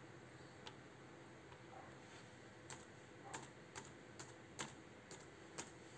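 Faint keystrokes on a Toshiba Satellite laptop keyboard: single key taps, few at first, then about every half second in the second half, as a word is typed.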